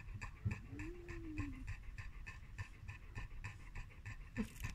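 Dog panting rapidly and steadily, about six breaths a second. A faint cry rises and falls about half a second in.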